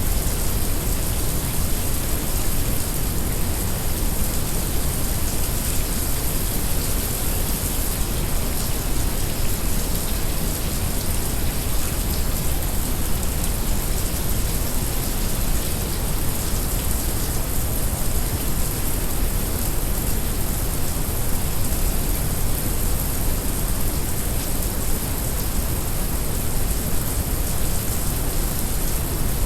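Heavy rain mixed with a layer of brown noise: a steady, unbroken rushing hiss with a deep low rumble beneath it.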